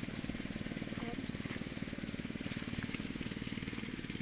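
A small engine running steadily, with a fast, even firing beat.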